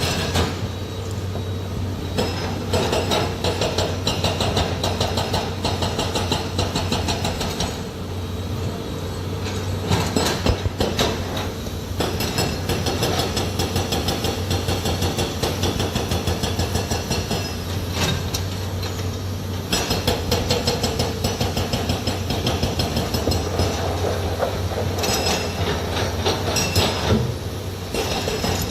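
Heavy excavator at work: its diesel engine runs with a steady low hum while the machine gives off irregular metallic clanking and rattling throughout.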